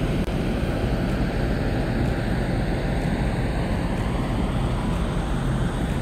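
Steady low rushing noise of a large car ferry under way, its engine rumble, rushing water and wind blended into one even sound.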